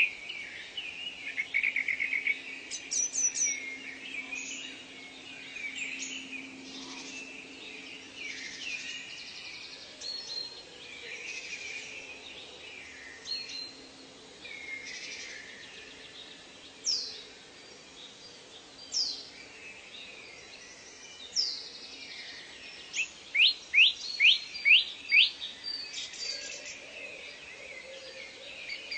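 Several birds singing and calling together: many short chirps and whistles, a few sharp downward-sweeping whistles, and a quick run of loud repeated notes in the last third. A faint steady low drone runs underneath.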